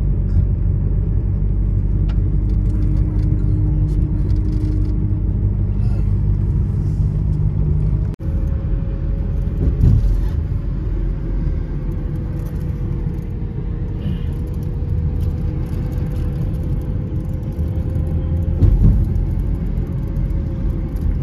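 Car driving, heard from inside the cabin: a steady low rumble of tyres and engine. The sound drops out for an instant about eight seconds in, and after that a steady hum runs under the rumble.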